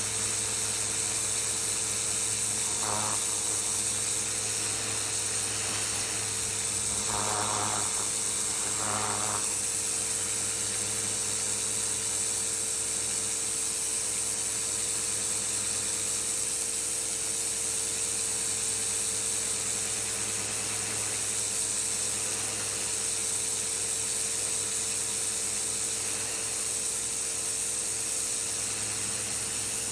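Pressure washer running steadily, its jet hissing against a concrete walkway to blast off caked-on dirt, over the hum of the machine's motor and pump. The spray sound flares briefly a few times, about three seconds in and again around seven to nine seconds in.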